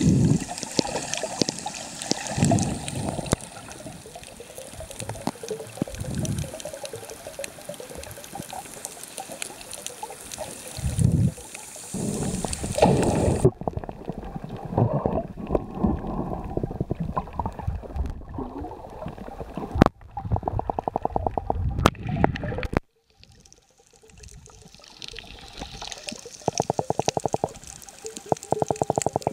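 Water sloshing and gurgling around an underwater camera while snorkelling, heard muffled, with two runs of rapid clicking in the second half.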